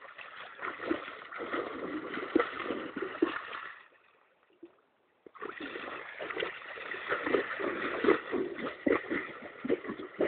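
Horse pawing in shallow water, splashing in a rapid, uneven run of strokes, stopping for about a second and a half near the middle before starting again.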